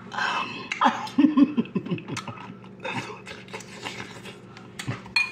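A metal spoon clicking and scraping in a bowl of cheese dip, with chewing, breathing and mouth noises from eating, over a steady low hum.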